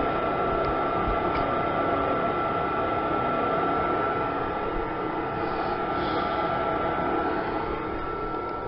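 Exhaust from a c. 2004 Trane gas furnace's flue pipe while the furnace runs: a steady rush of air with a constant high whine running through it, easing slightly towards the end.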